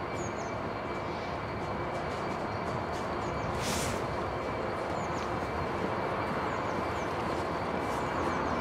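Very slow freight train of flat wagons loaded with cable drums rolling along the track, a steady rumble with a faint steady hum, and a brief hiss a little under four seconds in.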